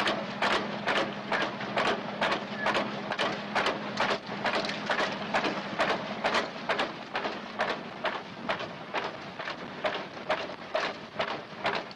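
Rhythmic mechanical knocking on a shrimp-fishing cutter, about three knocks a second, over a steady low hum.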